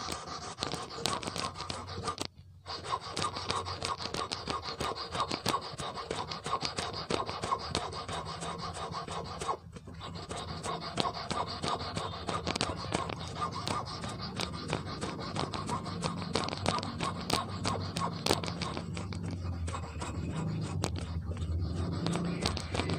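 Fine sandpaper rubbed rapidly back and forth on the point of a brass wire being shaped into an eel-fishing hook: a quick, continuous rasping, with brief pauses about two and a half and ten seconds in.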